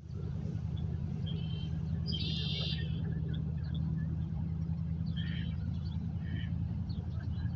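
Red-winged blackbirds and other songbirds calling from a marsh, with one dense trilled song about two seconds in. Over a steady low rumble.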